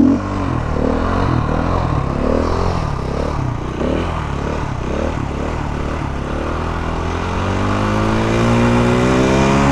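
Motorcycle engine running under throttle during a wheelie attempt. Its pitch climbs over a couple of seconds near the end and then holds higher.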